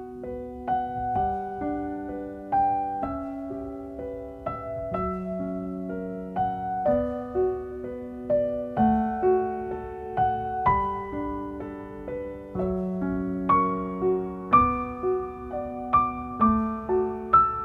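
Piano music: single notes and chords struck one after another and left to ring, in a gentle melody that continues throughout.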